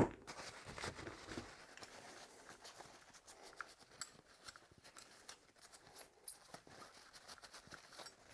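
A sharp click right at the start, then quiet scratchy rustling and small irregular clicks of hands handling small objects.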